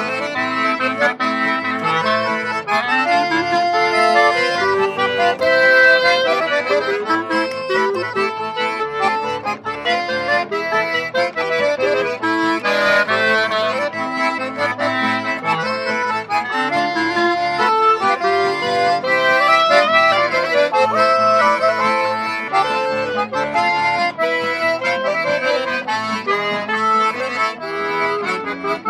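Live acoustic trio of button accordion, clarinet and acoustic guitar playing instrumental folk music together, with the accordion prominent.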